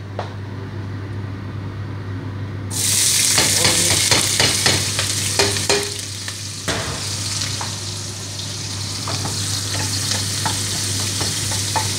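Chopped onion sautéing in hot cooking oil in a pan. The sizzle starts suddenly about three seconds in and carries on, with a spoon scraping and knocking against the pan as it is stirred.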